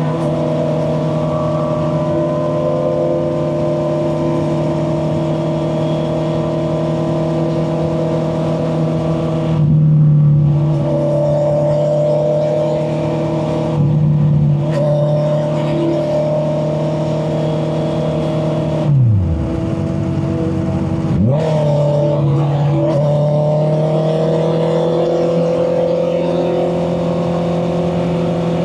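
Honda CB650R motorcycle's inline-four engine running while being ridden, held at steady revs. Twice the note changes briefly, and about two-thirds of the way through the revs fall sharply, then climb back up.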